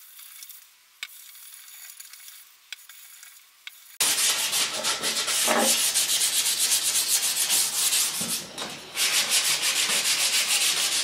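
Maple guitar neck being hand-sanded with sandpaper: quick, scratchy back-and-forth strokes that start abruptly about four seconds in, with a brief pause near the end. Before that there is only a faint hiss with a few light clicks.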